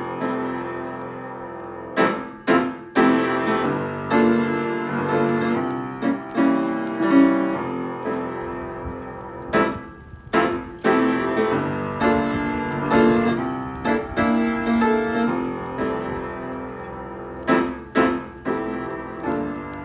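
Background music led by piano chords, with sharp beat hits a few times.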